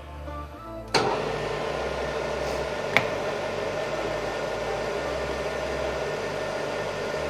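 Metal lathe spindle starting with a sharp click about a second in, then running steadily while a boring tool takes a cut inside the bore of a Delrin bushing. A second sharp click comes about two seconds after the start.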